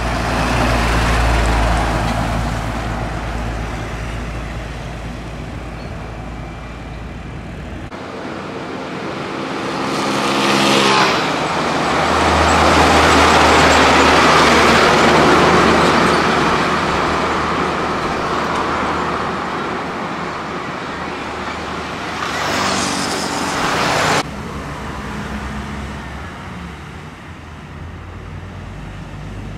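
Heavy diesel trucks driving past one after another: engine drone with tyre and road noise, loudest about halfway through as a truck passes close by. The sound changes abruptly about eight seconds in and again near the end, and an engine's pitch rises just before each of those changes.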